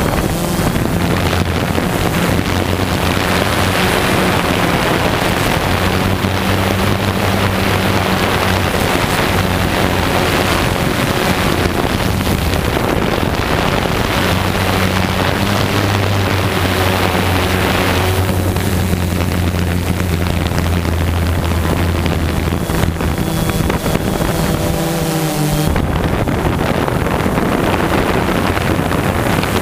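Quadcopter drone's motors and propellers humming steadily, heard from the drone's own onboard camera, with a rush of wind over the microphone.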